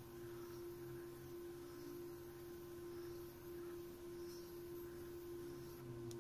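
A steady, faint hum held at one pitch, over faint room noise.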